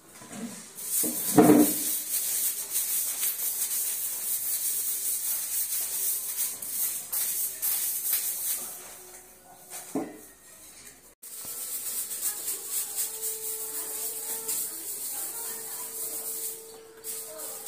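A stick broom brushing and scraping along painted walls and ceiling in quick, repeated scratchy strokes, with a brief louder knock about a second and a half in.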